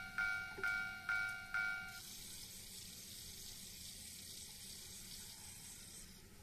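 Japanese level-crossing warning bell ringing its repeated two-tone clang about twice a second, stopping about two seconds in. After it stops comes a steady, fairly faint high hiss that fades near the end.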